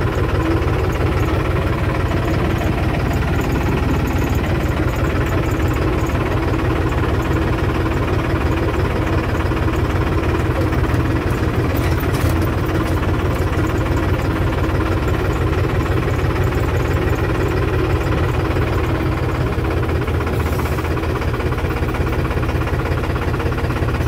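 Tractor engine running steadily at low speed, heard from inside the cab.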